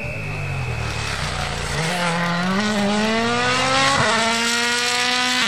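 A rally car's turbocharged four-cylinder engine accelerating hard, its note rising steadily in pitch and getting louder as the car approaches. A sharp crack comes about four seconds in, after which the engine holds a high, steady note.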